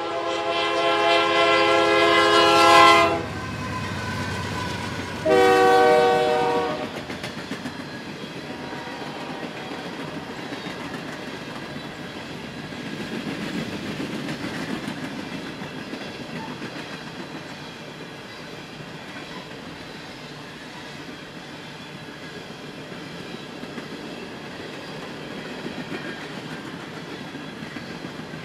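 Diesel locomotive air horn sounding a long blast of about three seconds, then a shorter blast a couple of seconds later. The train then passes with a steady rolling noise of empty coal hoppers and gondolas, wheels clicking over the rail joints.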